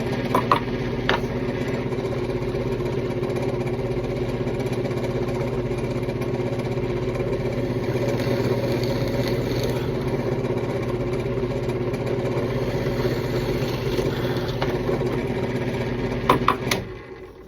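Drill press motor running at a steady hum, with a few sharp clicks near the start and near the end, then winding down near the end.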